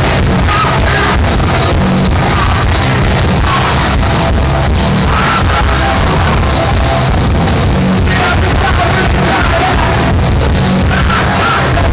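Hardcore punk band playing live, loud: distorted electric guitars, bass and drums in a dense wall of sound with fast drum hits.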